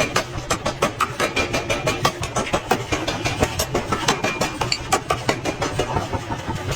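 Rapid, fairly even hammer blows on hot iron, about five strikes a second, over a steady low rumble.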